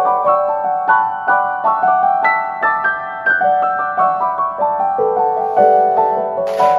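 Background piano music: a gentle melody of separate notes, a few to the second. A short hiss cuts in briefly near the end.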